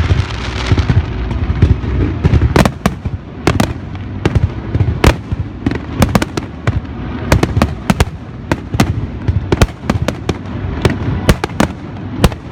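Fireworks display: many sharp shell bursts and cracks, irregular and often several a second, over a continuous low rumble of booms.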